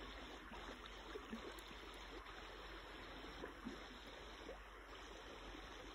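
Faint river water flowing and lapping close by, a steady low wash with a few small soft water sounds.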